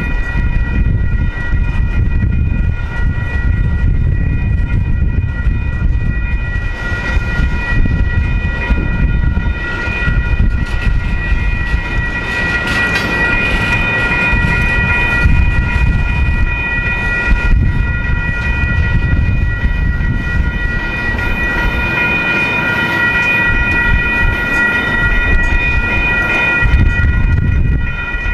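Freight train cars rolling slowly through a railroad grade crossing, a steady low rumble of wheels on rail. Over it runs a steady high-pitched ringing tone.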